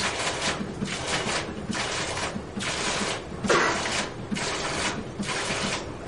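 Digital waterfall running a pattern: its valves clatter rapidly and curtains of water drops fall and splash, in bursts of a fraction of a second to about a second with short breaks between.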